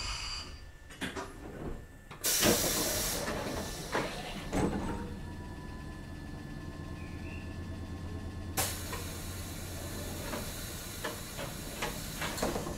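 Kotoden 1070-series electric train standing at a stop, letting off compressed air: a sudden loud hiss about two seconds in that dies away over a second, a few knocks, and a steady hiss of air from about eight and a half seconds on, over a low steady hum.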